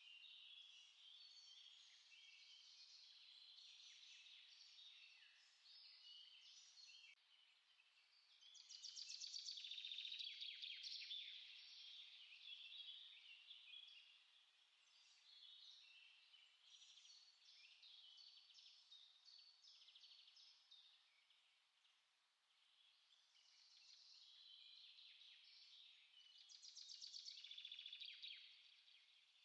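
Small songbirds chirping and singing, many short overlapping calls and trills in a continuous chorus, swelling louder about a third of the way in and again near the end.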